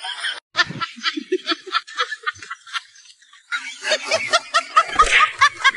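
Rapid, high-pitched laughter, a quick string of short 'ha' notes at about four or five a second. It breaks off for about a second in the middle, then starts up again and grows louder toward the end.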